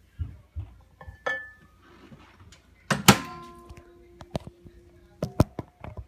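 Clunks and knocks at a microwave oven, with one loud metallic bang about three seconds in that leaves the metal ringing for a second or two, and a second sharp knock near the end with a shorter ring.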